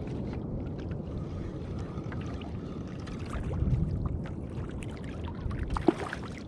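Seawater sloshing and lapping against a kayak's plastic hull, swelling briefly about midway, with small clicks and one sharp knock near the end.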